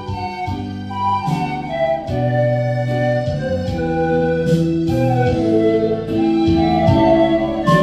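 Pan flute playing a slow, held melody over a backing track of bass notes and keyboard chords.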